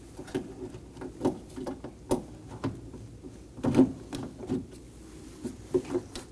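Scattered plastic clicks and knocks of a replacement exterior car door handle being worked into its opening in the door, the loudest knock a little before the four-second mark.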